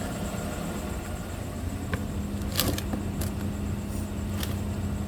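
Chevy 5.3 V8 engine idling steadily, with a few light clicks over it.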